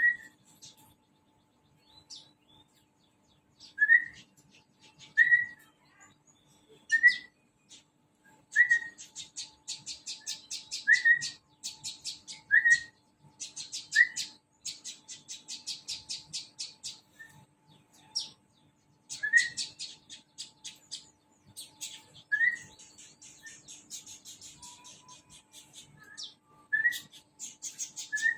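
A caged prinia (perenjak) calling: short, loud rising whistled notes every second or two, mixed with long runs of rapid, high, chattering trills. A faint steady hum sits underneath.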